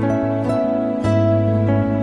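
Instrumental background music: plucked notes ringing over a held low note, with a new note about every second.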